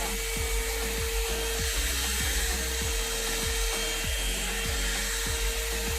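One-step hot-air brush dryer running on its low setting: a steady rush of air with a constant motor hum. Background music with a steady beat plays underneath.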